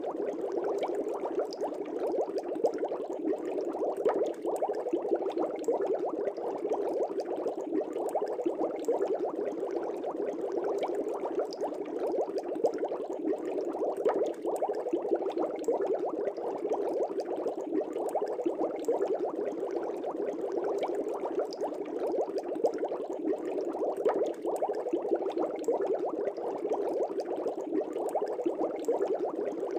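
Air bubbles rising through aquarium water, bubbling steadily and densely with many small pops.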